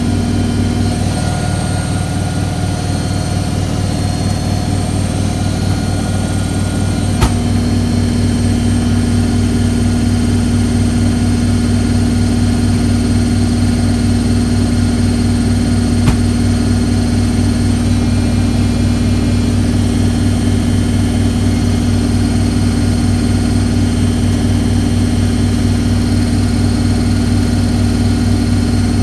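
Hoover A3190 Electron 1100 De Luxe washing machine on its spin cycle, the drum spinning at speed with a steady motor hum and whine. It wavers slightly for the first few seconds, then holds steady after a faint click about seven seconds in; another faint click comes near sixteen seconds.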